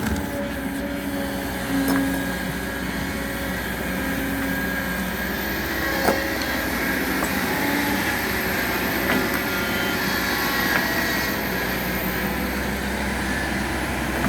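Excavator's diesel engine running steadily, with a few sharp knocks.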